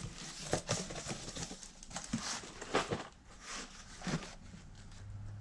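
Carded action figures in plastic blister packs being handled and shuffled: irregular crinkles, light clacks and rustles of plastic and cardboard.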